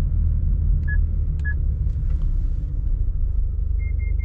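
Steady low rumble of the Subaru Forester tS STI's engine and road noise, heard from inside the cabin while driving at speed. Two short electronic beeps come about a second in, and three quicker, slightly higher beeps near the end.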